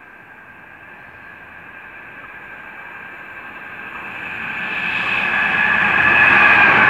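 Class 66 diesel-electric freight locomotive, with its two-stroke V12 diesel, approaching along the line. The engine and wheel noise grow steadily louder, with a steady high whine, until the locomotive draws level near the end.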